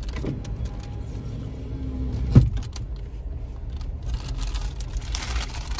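Steady low rumble of a car cabin on the move, with one sharp knock about two and a half seconds in and a brief rustle near the end.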